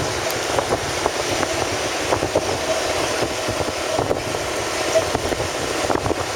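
Steady road and wind noise from a vehicle on the move, with many small irregular ticks and rattles.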